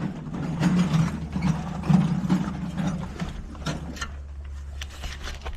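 Ratchet wrench working a bolt on the control arm of a 2010 Audi S4, in a run of rapid clicks for about three seconds, then slower separate clicks, over a steady low hum.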